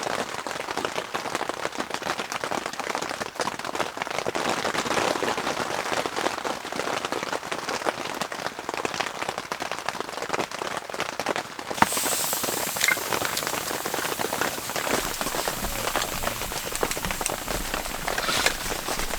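Rain falling on tent fabric: a dense stream of drops pattering. About twelve seconds in, the sound changes abruptly and turns hissier.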